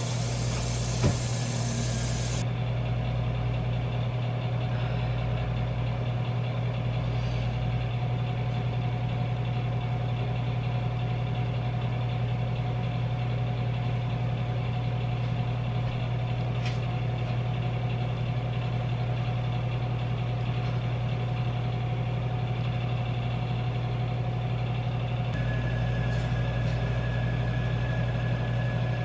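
A steady low mechanical hum, like a fan or small motor running. In the first couple of seconds the brushing of an electric toothbrush rides over it and cuts off suddenly, with one click about a second in.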